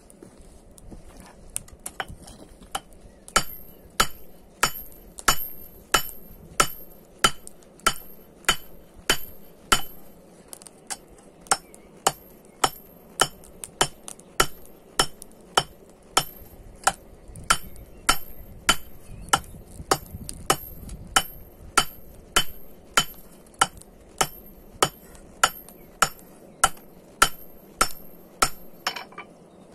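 Hand hammer striking red-hot 5160 spring steel on a small anvil, a steady run of about one and a half ringing blows a second that starts a couple of seconds in and stops near the end. The spring steel is being flattened into a bar for a knife.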